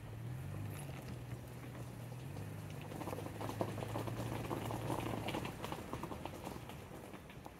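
Footsteps through dry fallen leaves, a busy crackling that is thickest in the middle, over a low steady drone.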